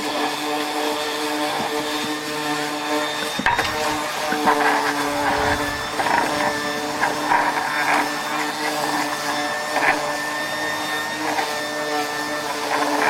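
Power sander running steadily with a constant motor hum, and louder uneven scraping surges as it works against the surface.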